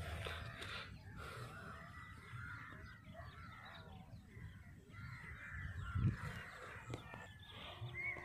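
Several birds calling at once in a steady outdoor chorus, over a low rumble, with a soft low thump about six seconds in.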